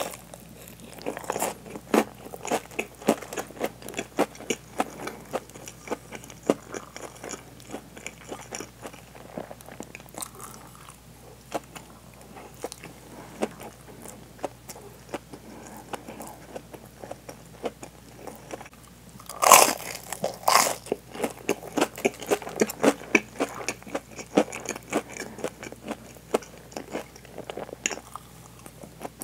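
Close-miked chewing and biting of a breaded, deep-fried hanpen fish cake with cheese, with many small crisp crackles from the fried coating. Two much louder crunches come a little past two-thirds of the way through.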